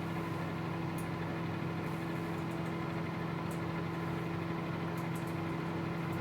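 Microwave oven running with a steady electrical hum, with a few faint ticks over it.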